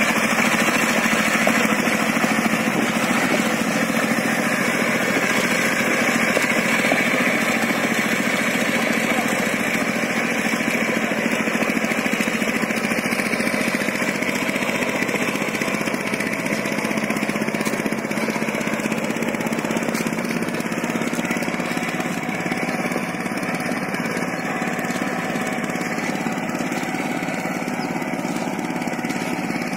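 Power tiller's engine running steadily under load as its rotavator churns through wet paddy mud. It grows slightly fainter toward the end as the machine moves away.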